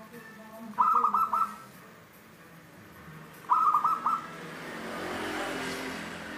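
Caged zebra dove (perkutut) cooing: two short phrases of quick, clear notes, one about a second in and another about three and a half seconds in. In the second half, a broad rushing noise swells and fades.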